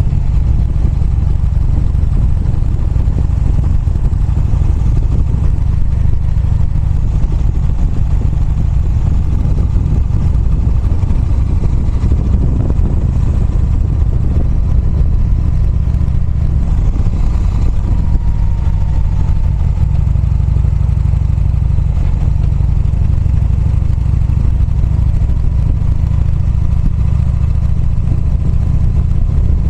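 Motorcycle running at a steady pace on the road, heard as a loud, steady low rumble.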